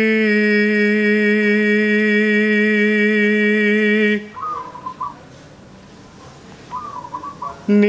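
A sung note of Javanese kidung held long and steady, dipping slightly in pitch just after the start and breaking off about four seconds in. In the pause a zebra dove (perkutut) coos twice in short warbling phrases.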